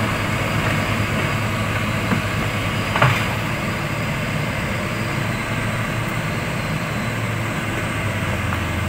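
Crawler excavator's diesel engine running steadily as it handles a bundle of steel rails on a truck, with one sharp knock about three seconds in.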